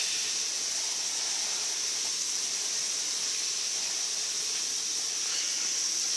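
Steady high-pitched chorus of night insects, an unbroken hiss-like trill.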